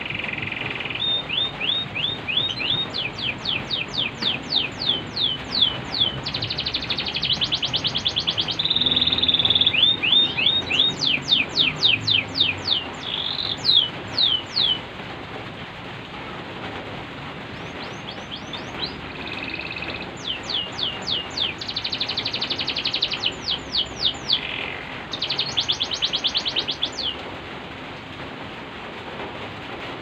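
Domestic canary singing in several phrases of rapid trills, made of fast repeated falling notes and buzzy rolls, over a steady hiss of rain.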